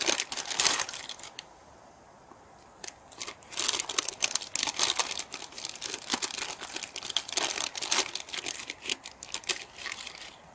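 Crinkly plastic instant-ramen packet being handled, torn open and emptied of its noodle block: a dense run of crackling rustles from about three seconds in, after a shorter burst of rustling in the first second and a half.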